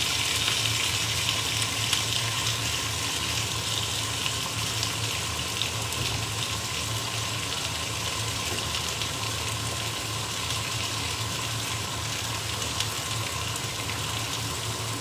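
Two pork neck chops frying in oil, freshly laid into the pan and sizzling steadily, easing off slightly as it goes on.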